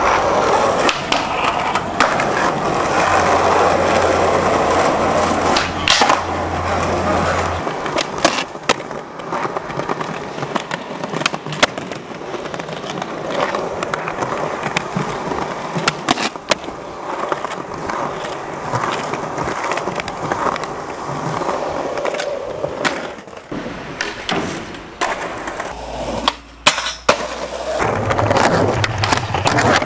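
Skateboard wheels rolling on concrete, cut by many sharp clacks of the board popping and landing.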